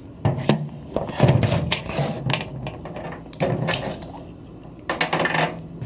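Close handling noises: several irregular knocks, rubs and clatters against a kitchen counter, with the loudest stretch of them about a second in.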